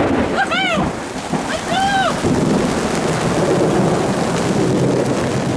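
Heavy rain pouring down, with a long low rumble of thunder rolling in about two seconds in and carrying on. In the first two seconds a few short pitched calls rise and fall over the rain.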